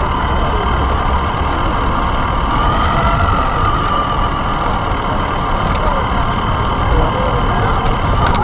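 RC car driving over pavement, heard from a camera mounted on the car: a steady motor and drivetrain whine over a low rumble from the tyres. The whine drifts up and down in pitch as the speed changes.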